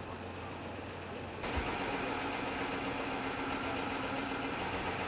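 A vehicle engine idling steadily. About a second and a half in the background sound changes abruptly and gets louder, as at an edit.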